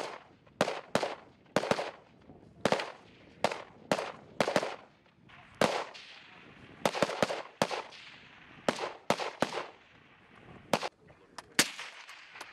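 Rifle fire: a string of single shots, about one to two a second at uneven spacing, each followed by an echoing tail.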